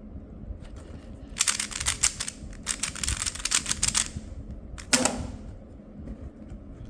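Twisty puzzle (speed cube) being turned fast through an algorithm: a quick run of plastic clicks and rattles lasting about two and a half seconds, then a single sharp knock a second later.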